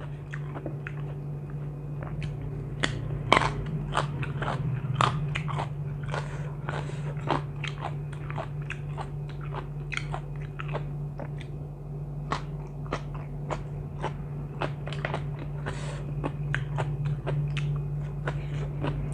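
A person chewing and biting crunchy food close to the microphone: many crisp crunches and mouth clicks, a few a second, over a steady low hum.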